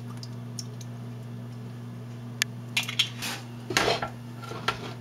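A steady low hum, then from about halfway a few sharp metal clanks and knocks as a stainless steel stockpot is handled and shifted on a glass-top electric stove.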